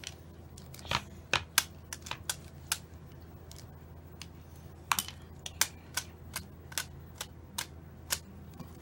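A small plastic packet of powder being handled and tapped over a bowl, making sharp, irregular clicks in two runs with a pause of about two seconds between them.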